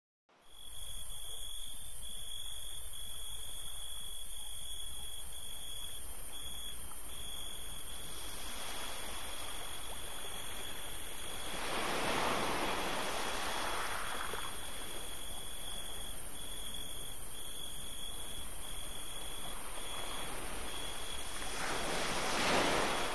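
Steady rushing wind-and-sea sound effect, swelling louder about halfway through and again near the end, with a thin steady high tone held under it.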